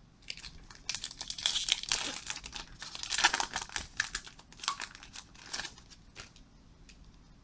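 A Topps baseball card pack wrapper being torn open and crinkled: a run of crackling rustles lasting about five seconds.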